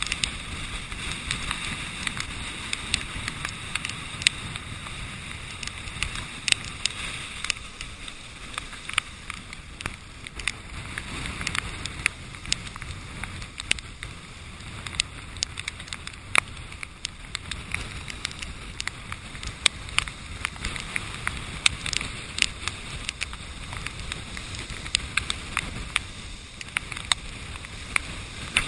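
Hurricane-driven surf rushing and breaking against the seawall, with wind rumbling on the microphone, heard muffled through a GoPro's waterproof housing. Frequent sharp ticks throughout are water drops striking the housing.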